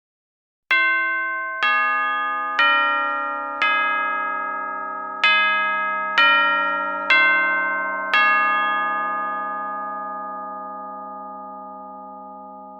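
Tuned chimes struck eight times in two phrases of four notes, about one note a second with a short pause between the phrases. Each note rings on over the next, and the last dies away slowly.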